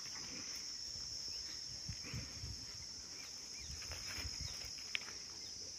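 Steady high-pitched insect buzz, with faint low rustles and one short click about five seconds in.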